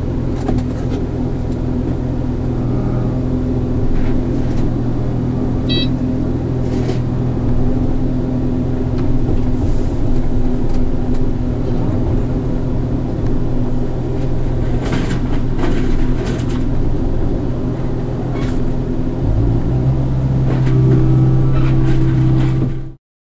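Mini excavator's diesel engine running steadily, heard from inside the cab. About 19 seconds in, the engine note steps up and gets louder as the machine is throttled up.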